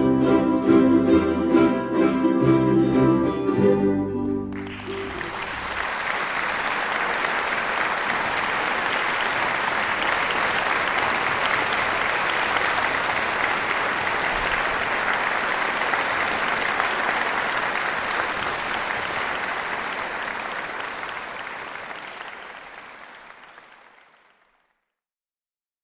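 A live band with plucked string instruments and bass finishes a song, and an audience then applauds for about eighteen seconds; the applause fades out near the end.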